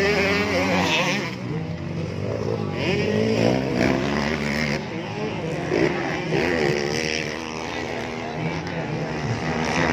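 Several motocross dirt bikes racing around a dirt track, their engines rising and falling in pitch as the riders open and close the throttle.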